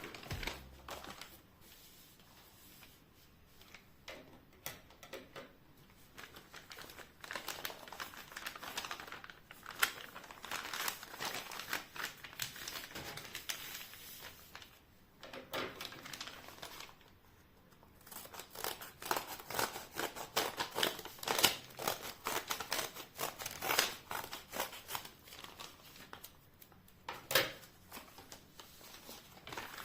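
Close crinkling and rustling of craft materials being handled, in irregular bursts with a few short pauses.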